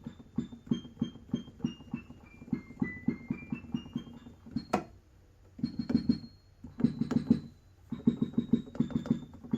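Yamaha Motif keyboard played a key at a time: a run of single notes stepping down and then back up, then after a short pause several quick clusters of notes, with a sharp click a little under five seconds in. The keys, once stuck together by a spill, now each sound on their own.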